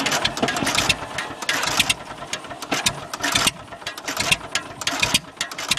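International TD-6 crawler's diesel engine turning over and firing unevenly, a loud irregular clatter, during a hard cold start after sitting unused for over a year.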